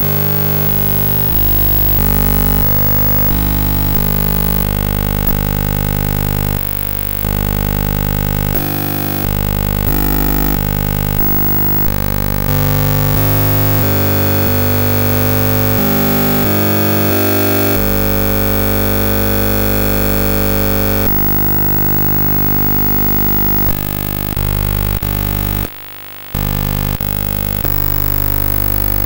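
Video signal from a circuit-bent Blaupunkt DVM-1000 video mixer, run through a second circuit-bent video processor and heard as audio. Harsh buzzing drones of steady stacked tones jump abruptly to new pitches and timbres every second or so. The sound drops out briefly about 26 seconds in.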